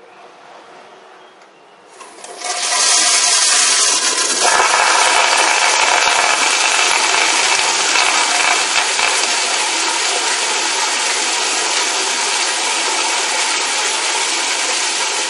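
Toilet flushing: a loud rush of water starts about two seconds in, swells a couple of seconds later, and runs on steadily before dropping away at the very end.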